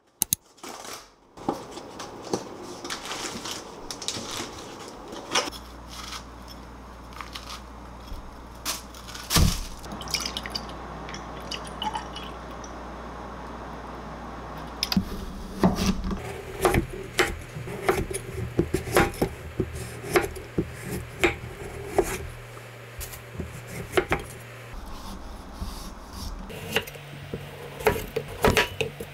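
Kitchen preparation sounds: a cardboard box of pancake mix being handled, milk poured into a glass beaker, and a kitchen knife cutting through a kabocha squash onto a wooden cutting board. Clicks and knocks of utensils and containers run throughout, with sharper knife strikes on the board near the end.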